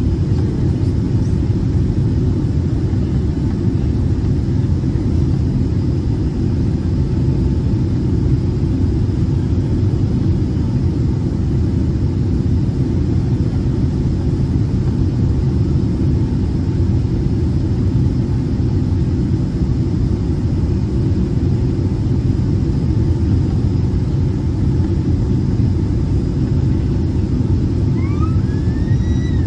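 Steady rumble of a Boeing 767's cabin noise from engines and airflow on final approach with the flaps extended, heard from a window seat over the wing. A couple of faint, short rising tones come near the end.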